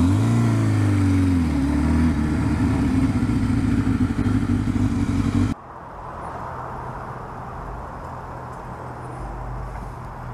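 2004 Kawasaki Concours 1000's inline-four engine pulling away from a stop: its pitch rises and falls over the first two seconds, then it runs steadily. It cuts off suddenly about five and a half seconds in, leaving a quieter steady low hum.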